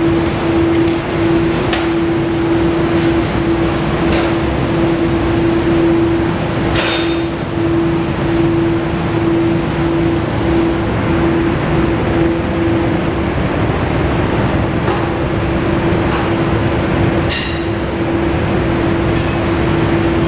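Steady mechanical drone with a constant hum that flickers, and a few light clinks.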